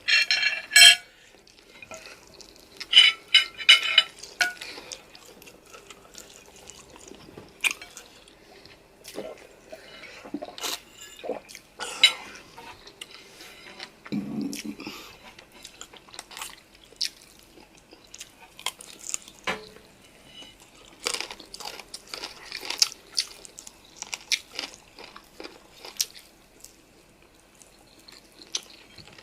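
Close-miked eating of noodles and chicken: chewing and mouth sounds, with irregular clicks and clinks of cutlery against a dish. Two louder clusters of sharp sounds come near the start.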